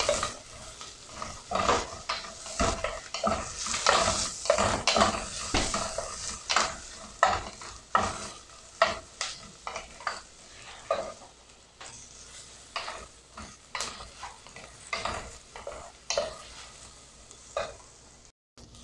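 Wooden spatula stirring and scraping sliced onions around an aluminium pot, with a light sizzle of the onions frying in a little oil as they begin to brown. The strokes come quickly at first and thin out in the second half, and the sound cuts out briefly near the end.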